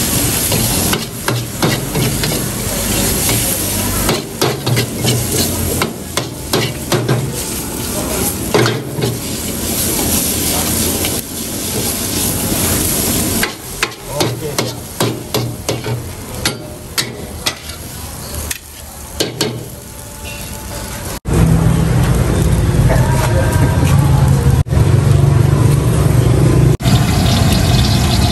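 Metal wok ladle scraping and clanking rapidly against a wok while noodles are stir-fried over high gas heat, over a frying sizzle. About 21 seconds in, this gives way to a steady low rumble.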